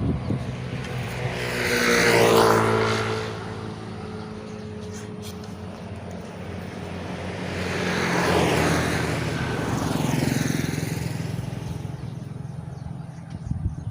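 Road vehicles passing: one swells and fades about two seconds in, and more pass around eight to ten seconds in, over a steady low engine hum.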